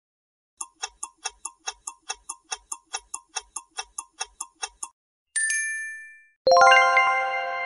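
Quiz countdown-timer sound effect: a clock ticking fast, about five ticks a second, for about four seconds. Then comes a ringing ding, and about a second later a louder chime of several bright tones that marks the correct-answer reveal.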